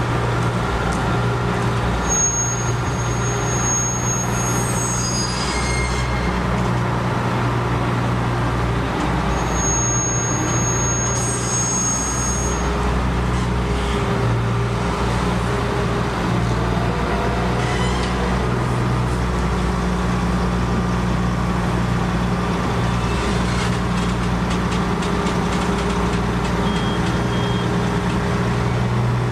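Engine of a PLM 65 cable excavator running steadily with a deep, even hum, and a thin high whistle heard twice for a few seconds each.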